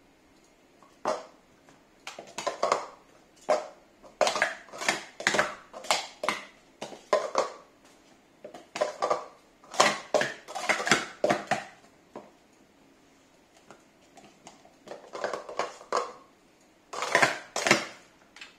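Plastic speed-stacking cups clattering as they are rapidly stacked up into pyramids and swept back down in a timed cycle stack, in quick bursts of clicks and clacks with short lulls between sequences.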